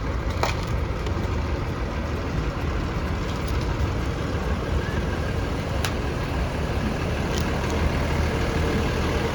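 Tour bus engine running steadily with a low rumble, a few short clicks over it.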